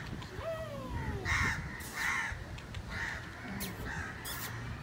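Crows cawing repeatedly, a string of short harsh caws. Near the start there is also a call that slides down in pitch.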